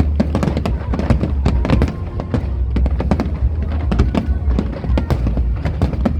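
Fireworks bursting in quick succession, several sharp bangs and crackles a second, over show music with a steady deep bass.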